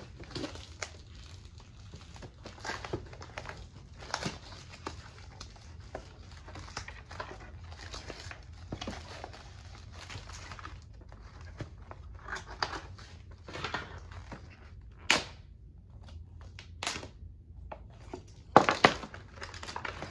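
Rustling, crinkling and small clicks of cardboard and paper packaging being handled, as die-cut toy pieces are worked out of a printed cardboard sheet. There are several louder rustles in the second half, the loudest near the end.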